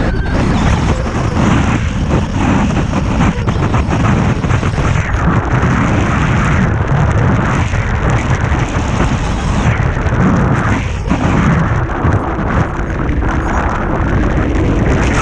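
Strong wind blasting over the microphone in flight, a loud, unbroken, rumbling roar with fast, irregular gusts.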